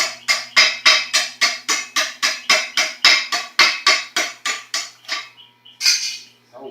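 Hammer striking metal in a fast, even series of ringing blows, about four or five a second, that stop about five seconds in; a short hiss follows near the end.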